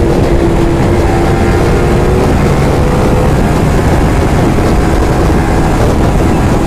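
Motorcycle engine running steadily at cruising speed on the road, with wind rushing over the rider's microphone. The engine note shifts slightly about two seconds in.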